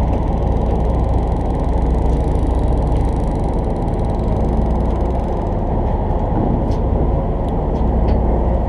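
Party fishing boat's engine running with a steady low drone, along with wind and water noise.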